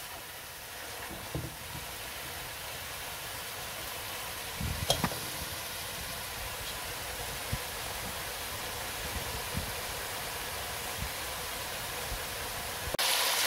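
Vegetables and potatoes sizzling steadily as they stir-fry in hot oil, with a few light knocks of a utensil against the cooking pot. The sizzle grows louder near the end.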